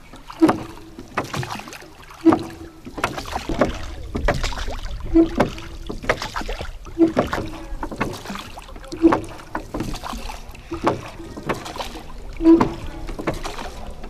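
Oars of a wooden rowboat working at a slow, steady pace, about one stroke every two seconds. Each stroke brings a short creak and a splash.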